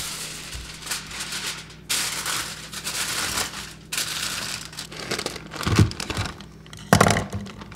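Aluminium foil crinkling as it is spread and pressed down over a metal baking sheet, then plastic bag rustling as it is snipped open with scissors. Two louder knocks come near the end.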